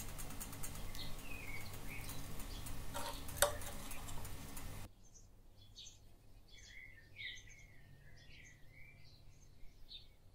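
Faint crackling over a low hum, with short bird chirps and one sharp clink of a spoon against a china plate as pesto is spooned onto fried eggs. About five seconds in the sound drops much quieter, leaving only scattered bird chirps that glide down in pitch.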